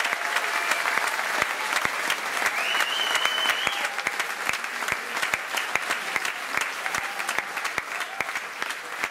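Theatre audience applauding at the close of a live show: dense, steady clapping that slowly dies down.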